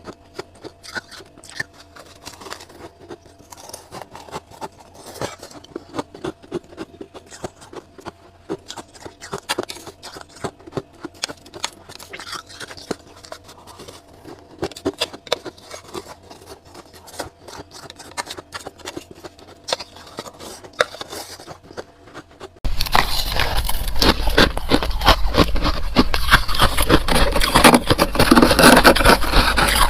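Freezer frost being scraped and crunched: scattered small crisp crunches and clicks. About three quarters of the way through it switches abruptly to much louder, dense, continuous crunching.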